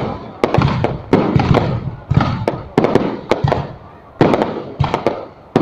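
Fireworks going off in a rapid, irregular string of sharp, loud bangs, each trailing off in a fading echo before the next.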